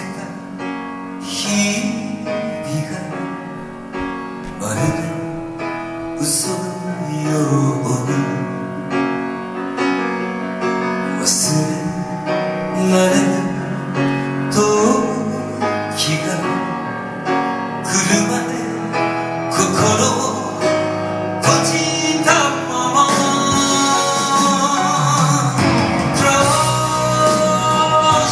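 Japanese ballad: a sung melody over instrumental accompaniment.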